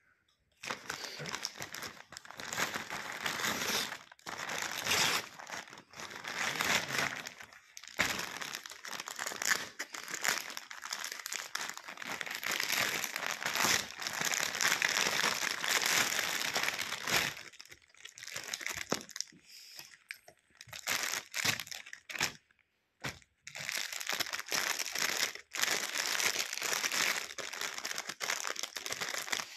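Paper mailer and clear plastic garment bags crinkling and rustling as they are opened and handled, in irregular bursts with short pauses.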